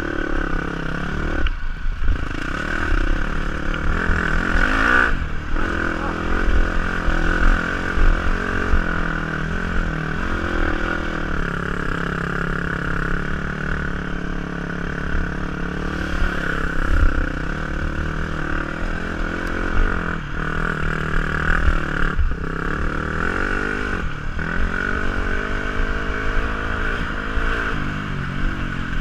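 KTM 250 SXF four-stroke single-cylinder dirt bike engine under way, its revs rising and falling with the throttle, and dipping briefly several times, about two seconds in, at five seconds and around twenty to twenty-four seconds.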